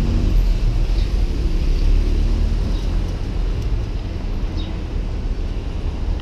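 Steady low rumble of street traffic, with a car running close by.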